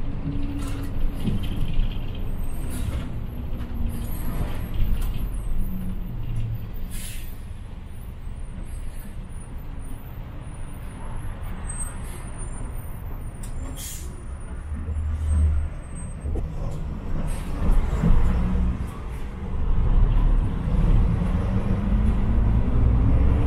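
City bus running through town, its engine rumbling low, with short air-brake hisses. It is quieter for a few seconds in the middle, then the engine pitch rises as the bus pulls away and speeds up near the end.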